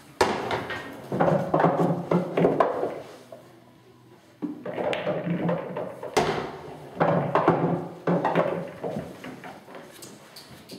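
Pool shots on an English pool table: the cue tip strikes the cue ball and the balls roll across the cloth, clicking against each other and the cushions. This happens twice, once just after the start and again about six seconds in.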